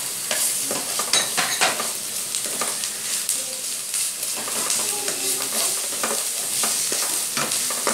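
Chopped onions sizzling in hot oil in a pot, with a steady hiss, while a wooden spatula stirs and scrapes them around the pan in repeated short strokes.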